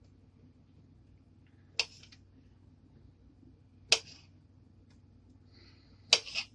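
Kitchen knife clicking against a cutting board as grapes are sliced lengthwise: three sharp clicks about two seconds apart, the last a quick double.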